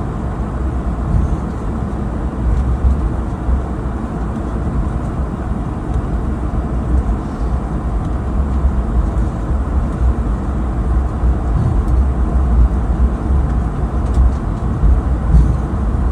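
Cabin noise of an Airbus A220-300 taxiing after landing: a steady, deep rumble of the idling engines and the rolling aircraft, heard from inside the cabin.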